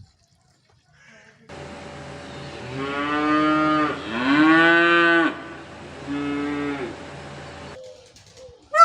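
A cow mooing three times, long low calls with the second the loudest, over a steady low background hum. A brief sharp animal call right at the end.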